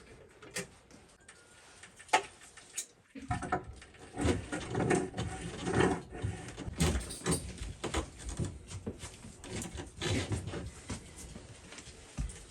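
Irregular clicks, knocks and light clattering of hands-on work at the water heater, with busier stretches in the middle.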